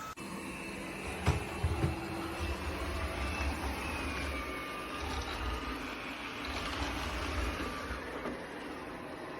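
iRobot Roomba 105 robot vacuum running, a steady mechanical whir with a low rumble, and two sharp knocks between one and two seconds in.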